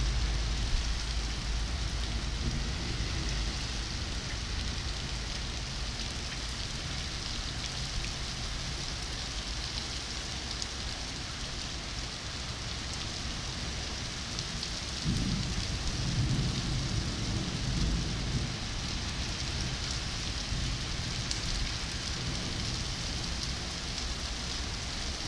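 Heavy rain pouring steadily onto pavement and parked cars, a dense, even hiss. About fifteen seconds in, a low rumble rises and lingers for a few seconds.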